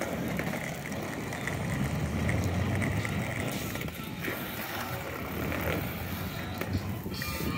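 Skateboard wheels rolling steadily over asphalt, a continuous rumble with no break.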